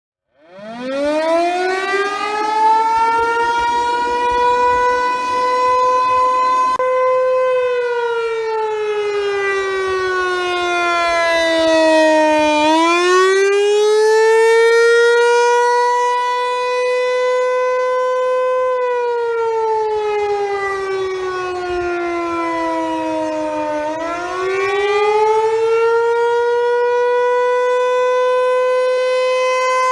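ASC T-128 rotating outdoor warning siren winding up from silence, then sounding a slow rising-and-falling wail that dips in pitch about every eleven seconds: the attack signal of a siren test.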